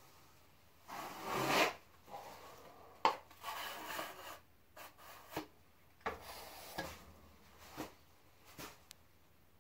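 Drywall knife scraping joint compound across a ceiling patch in a series of irregular rough strokes. The longest and loudest comes about a second in, and a few short sharp taps of the blade follow later.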